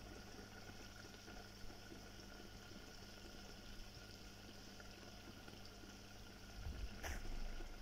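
Red fish gravy simmering in a clay pot: a faint steady bubbling under a low hum, with one sharp knock near the end.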